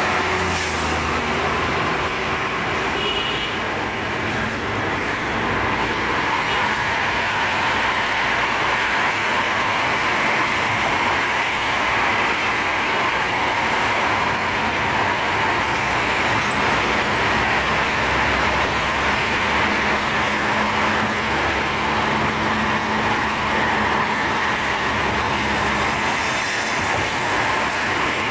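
Steady road and traffic noise of a moving car, heard from inside the vehicle.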